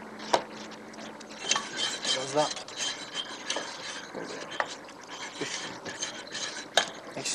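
Wooden spoon stirring and scraping dry buttered biscuit crumbs and ground almonds around a frying pan as they toast, a scratchy rasping, with two sharp knocks of the spoon against the pan, one about half a second in and one near the end.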